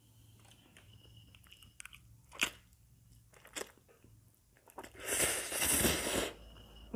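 Close-up eating sounds of instant fried noodles: soft chewing with a couple of sharp clicks, then a loud noisy slurp of noodles drawn into the mouth from about five seconds in, lasting over a second.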